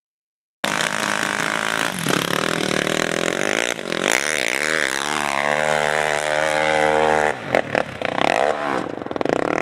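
Yamaha 450 sport quad's single-cylinder four-stroke engine revving hard under load, starting about half a second in. Its pitch swings up and down with the throttle, falls and steadies for a couple of seconds, then breaks into short throttle blips near the end.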